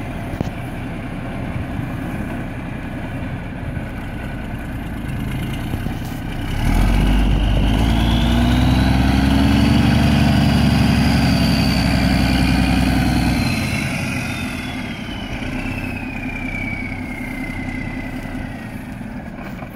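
Freightliner FLD 120 truck tractor's diesel engine idling, then revved up about six seconds in and held for several seconds, with a high whistle that rises with the revs. It then drops back toward idle while the whistle slowly falls away.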